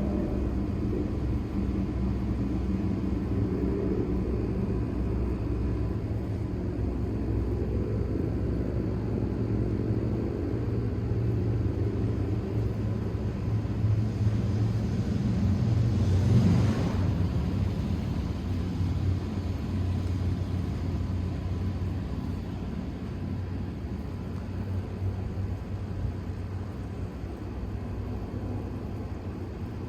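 Low, steady engine rumble that swells to a peak a little past halfway, with a brief rise in hiss at the peak, then slowly fades.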